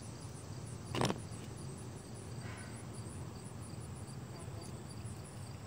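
Hands kneading slime in a plastic tub, with one sharp knock about a second in, over a faint, evenly repeating high-pitched chirping.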